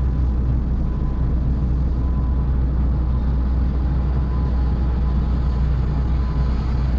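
HGV lorry's diesel engine running steadily, a low even rumble heard from inside the cab.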